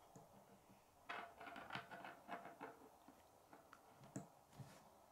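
Near silence, with faint light clicks and rattles of plastic K'nex pieces being handled, mostly in a cluster starting about a second in and one more click near the end.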